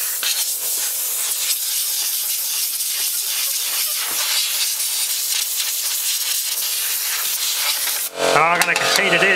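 Compressed air blasting in a steady hiss from an air blowgun, flushing old dust out of a vintage fan heater's drum fan and heating element. About eight seconds in the hiss cuts off and a louder sound with a wavering pitch takes over.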